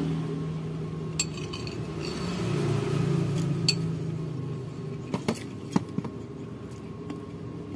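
Metal spoon clinking and scraping on a ceramic plate while eating, with a few sharp clinks: one about a second in, one near four seconds, and a quick cluster between five and six seconds.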